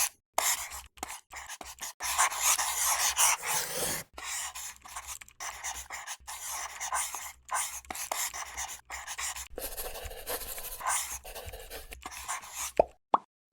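Acrylic paint marker tip scratching across a plastic keycap in short strokes, with frequent small taps. Near the end come a few short, pitched plops.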